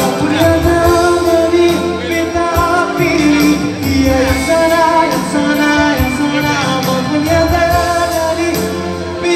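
Live pop band playing through a concert PA with a woman singing long held notes, heard from among the audience.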